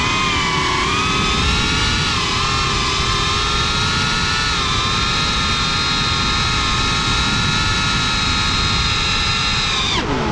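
Brushless motors and propellers of a Cinelog 35 FPV cinewhoop drone whining in flight, holding a fairly steady high pitch over a low rushing noise. Near the end the whine drops sharply in pitch.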